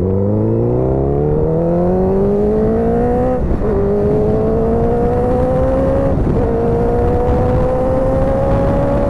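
Motorcycle engine accelerating through the gears. The pitch rises in each gear and drops back twice at upshifts, about a third of the way in and again about two-thirds in, climbing only slowly in the last gear.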